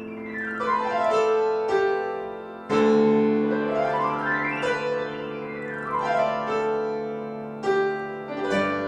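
Solo piano: right-hand glissandos sweep down and up the keyboard to imitate wind, over held left-hand melody notes. Fresh bass notes are struck about a third of the way in and again near the end.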